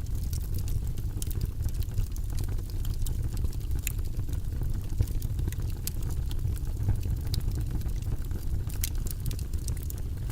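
Logs burning in a fireplace: a steady low rumble of the fire with frequent, irregular sharp crackles and pops.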